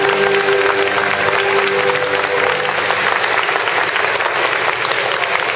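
Audience applauding over the last held chord of the ballet music; the music fades out a little over halfway through, leaving only the clapping.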